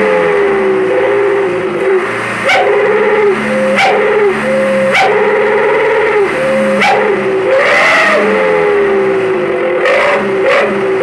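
A truck's 'knalpot serigala' wolf exhaust whistle sounding, driven by the engine's exhaust: a run of loud wavering howls, each a second or two long, with short yapping stutters between them like a dog barking and howling.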